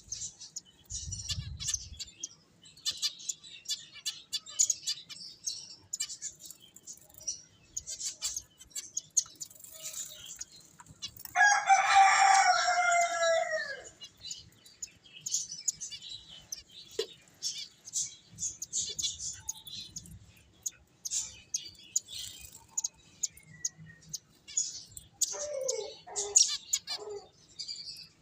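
Finches chirping, with many short high chirps coming and going. About eleven seconds in, a louder bird gives one drawn-out call, falling in pitch and lasting over two seconds, and a few lower calls follow near the end.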